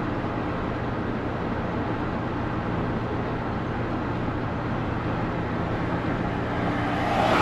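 Inside the cab of a 1975 Chevrolet C20 three-quarter-ton pickup cruising at about 55 mph: steady engine hum and road noise. The sound grows louder in the last half-second.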